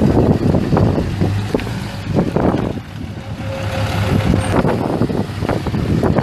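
2008 Dodge Ram 5500's 6.7-litre inline-six turbo diesel running at a steady idle.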